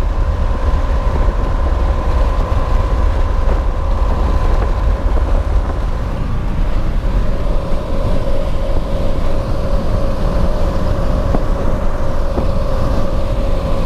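Steady road noise inside a moving vehicle at highway speed: a low rumble with a constant whine held at one pitch.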